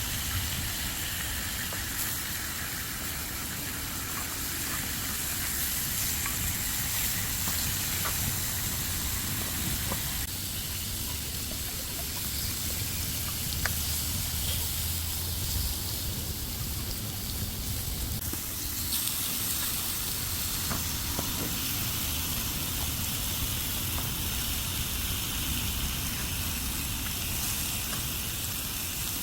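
Thin-sliced pork belly sizzling in a pan over a camp stove: a steady frying hiss with a low rumble underneath and a few light clicks of utensils.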